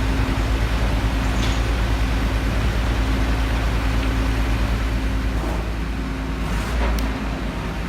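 A large engine running steadily, a heavy low rumble with a steady hum above it and a few faint clicks.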